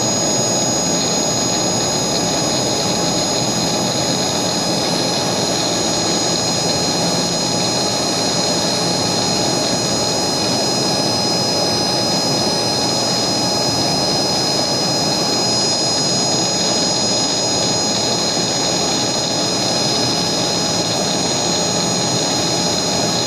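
Dasom A-60L CNC engraving machine's high-speed spindle running steadily while a micro end mill cuts a metal mould plate under liquid coolant. It is a steady high whine with several held tones over an even cutting hiss, unchanging throughout.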